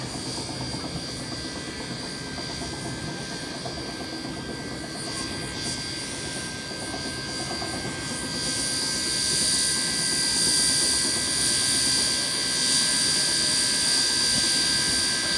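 Railway turntable turning steam locomotive 3526: a steady mechanical whine with a hiss that grows louder about halfway through.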